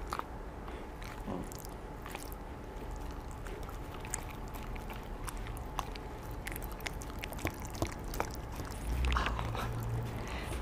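Corgi eating from a plate, licking and chewing with many small wet clicks and smacks at an irregular pace.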